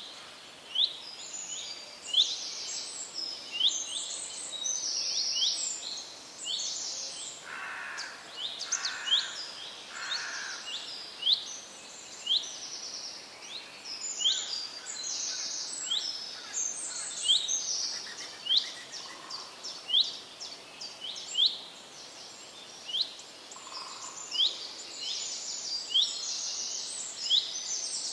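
Small birds chirping, a short call repeated about once a second, mixed with higher buzzy notes.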